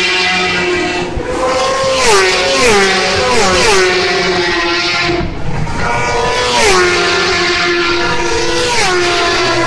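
Racing superbikes passing at full speed one after another, loud, each engine note falling in pitch as the bike goes by.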